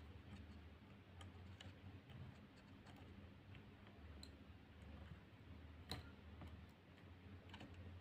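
Near silence with faint, scattered small ticks as a soldering iron works on a laptop charging port's pins; the loudest tick comes about six seconds in.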